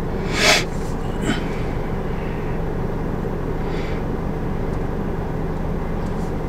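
Steady hum and rush of air inside a car's cabin, the climate-control blower running. A brief hiss comes about half a second in, with a smaller one about a second later.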